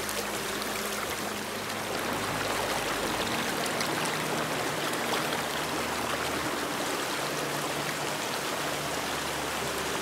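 Shallow rocky stream rushing and splashing over stones, with faint low sustained notes of soft background music underneath.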